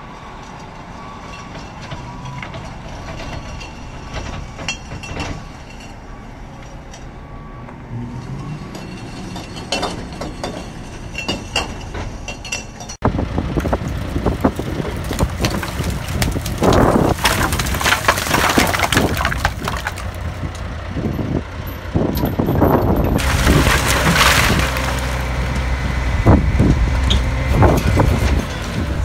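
Stationary compactor running as it packs wood pallets into a roll-off container, a steady mechanical hum with occasional cracks of wood. About halfway through the sound changes abruptly to a roll-off truck tipping the container, with loud, dense clattering and cracking as broken pallet wood tumbles out.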